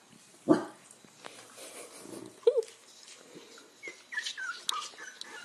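Very young corgi puppies squeaking and whimpering: a short squeak about midway, then several high squeals that fall in pitch near the end, with a short loud sound about half a second in.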